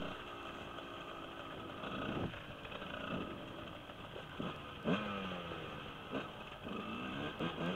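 Husqvarna 125 dirt bike engine heard from the rider's helmet, revving up and down over and over under throttle, its pitch rising sharply several times.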